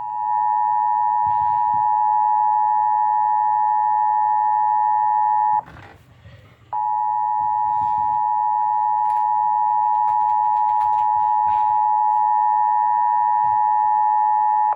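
Emergency Alert System two-tone attention signal (853 and 960 Hz sounding together), played over an Eton FRX3 radio. It is a loud, steady dual tone that cuts out for about a second a little before the middle, then resumes. It announces the North Carolina monthly EAS test.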